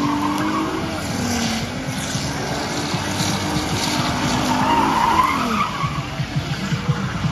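A car doing a smoky burnout: the engine revs hard, its pitch dipping and climbing, while the spinning rear tyres squeal on the asphalt. The squeal is loudest about five seconds in.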